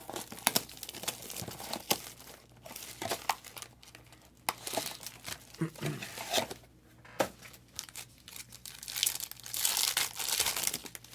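Trading-card pack wrappers crinkling and tearing as packs are opened, with sharp clicks from handling in between and a longer, louder stretch of tearing near the end.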